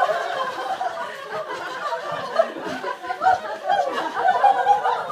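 A group of people laughing together, many voices overlapping, in a "zoo laughter" group laughter exercise.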